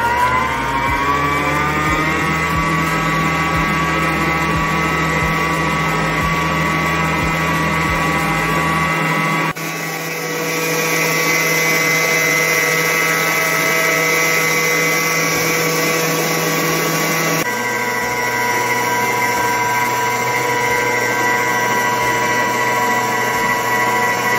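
Electric stand mixer motor running at speed with a steady whine, its beater working butter-and-egg cookie dough in a stainless steel bowl. The pitch rises over the first couple of seconds as the motor comes up to speed, and the tone shifts abruptly twice.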